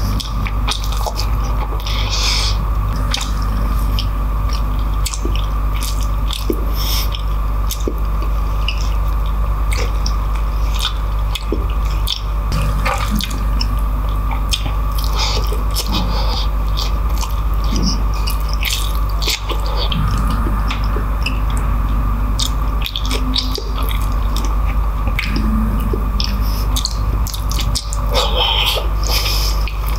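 Close-up wet chewing and lip-smacking of a person eating peanut-sauced oxtail, tripe and rice by hand, full of short sticky clicks and squelches.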